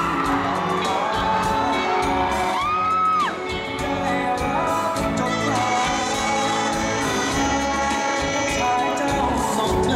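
A male singer sings a Thai song live over instrumental accompaniment, holding and bending long notes.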